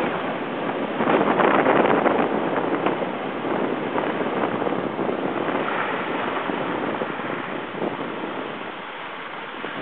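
Skis sliding and scraping over groomed snow, with wind on the microphone. The scraping is loudest for a second or so near the start and fades toward the end.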